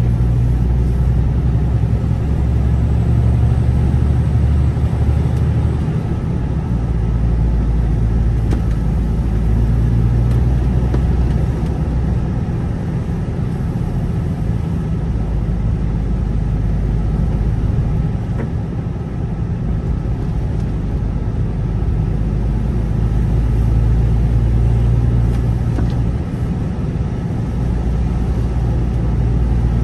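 Car driving along a narrow wet road: a steady low engine and road hum with tyre noise, its low note changing pitch a few times.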